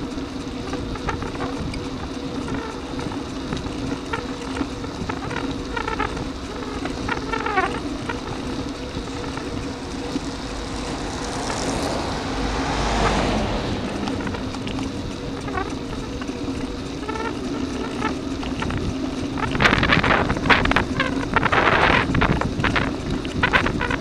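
Riding noise from a camera mounted on a moving bicycle, a steady hum with light rattle, as a truck passes in the opposite direction about halfway through with a swell of road noise and low rumble. Near the end comes a run of loud knocks and rattles.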